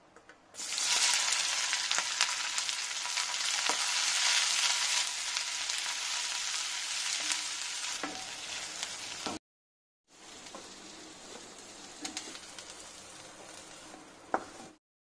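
Sliced onions hitting hot oil in a kadai: a loud sizzle starts suddenly and runs on as they fry, stirred with a wooden spatula. After a brief break the sizzle comes back quieter, with light scrapes and one sharp tap near the end.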